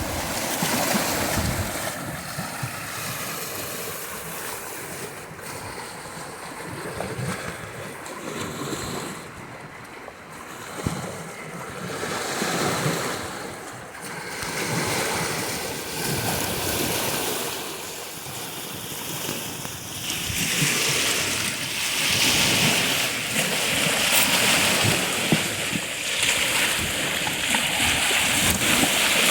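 Black Sea surf breaking and washing up the shore, swelling and ebbing with each wave, with louder, hissier breakers in the last third.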